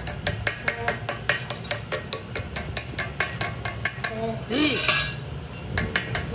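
Rapid, uneven metallic clinking, several strikes a second with a short ring: a steel tool working against the steel axle housing and hub. The clinking stops about four seconds in, a brief hiss follows, and it starts again near the end.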